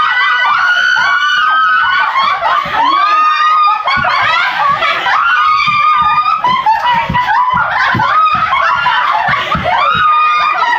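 A group of women screaming and laughing over one another, with high-pitched shrieks throughout.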